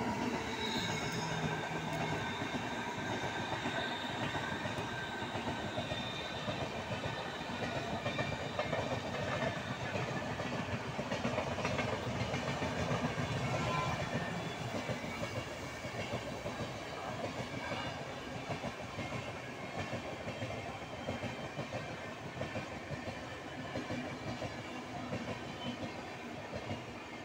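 Indian Railways electric locomotive and its long passenger train running past on the track: a steady, loud rush and clatter of wheels on the rails. A high steady whine is heard for the first several seconds, and the sound eases off gently in the second half as the coaches go by.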